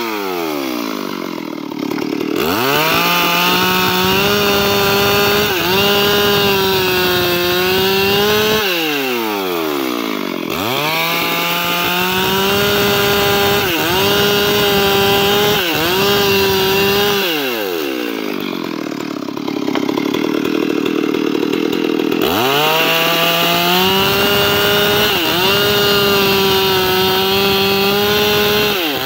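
Stihl two-stroke chainsaw cutting a mahogany log: it revs up to full throttle and holds a high, steady whine through three cuts, with brief dips as the chain bites. It drops back toward idle between cuts.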